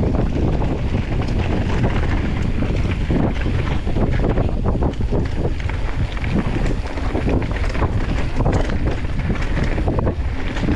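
Wind buffeting the microphone of a mountain bike's handlebar-mounted camera during a fast singletrack descent, over the steady rolling of tyres on dirt. Short clatters and knocks come through often as the bike chatters over roots and rocks.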